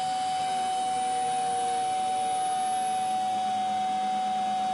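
Electric forklift's motor running with a steady whine over a hiss.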